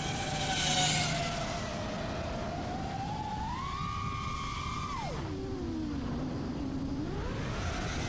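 Motors of an iFlight Nazgul Evoque F5 five-inch FPV quadcopter whining, the pitch climbing and falling with the throttle: a brief louder rush just under a second in, a rise about three and a half seconds in, a sharp drop about five seconds in, then a climb again near the end.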